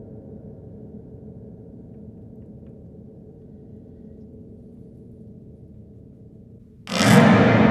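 Strings and frame of a bare upright piano with its case stripped off for dismantling: a low hum of strings ringing on and slowly fading, then near the end a sudden loud clang as they are set off hard, ringing on strongly.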